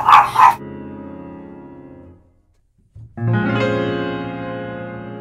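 Soft background piano music. A held chord fades away, a short pause follows, then a new chord sounds about three seconds in and rings on, with further notes joining. A short burst of voice is heard at the very start.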